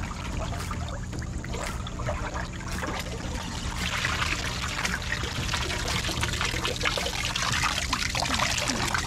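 Water splashing in a plastic tub pond as a fish net is swept through it, then pouring and trickling back off the lifted net, louder and fuller in the second half.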